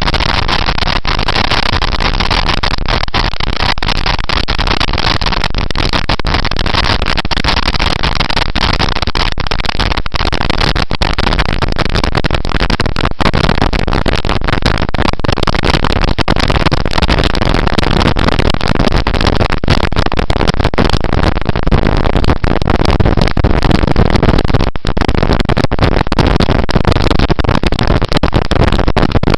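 Steady, loud wind rush and road noise on the microphone of a camera riding on a moving motorcycle, growing a little louder about halfway through.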